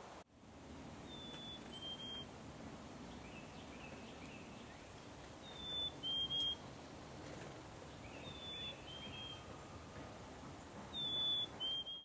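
Black-capped chickadee singing its clear two-note 'fee-bee' whistle, a higher note dropping to a lower one, four times, the second and fourth songs loudest. Faint twittering of other birds between the songs.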